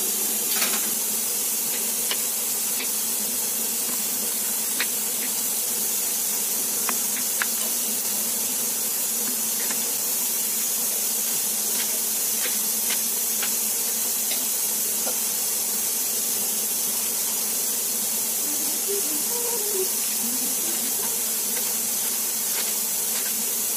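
A steady hiss, with scattered light taps of a knife on a wooden chopping board as Malabar spinach stems are cut.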